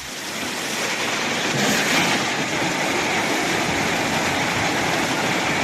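A steady rushing noise with no tone in it, swelling over the first second or two and then holding level.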